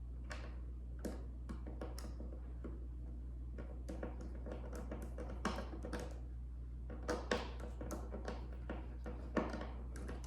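Scattered light taps, clicks and knocks of hard objects being handled, irregular and at no steady rhythm, over a steady low hum.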